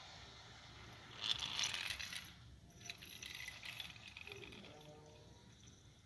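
Clattering rattle of small hard parts in two spells, the first about a second in and louder, the second about three seconds in.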